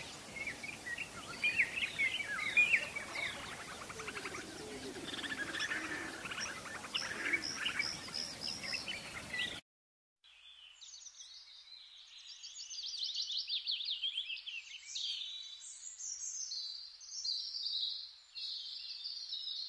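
Birds chirping over a background of noise, then, after a short cut near the middle, a second stretch of rapid, high trilled bird song.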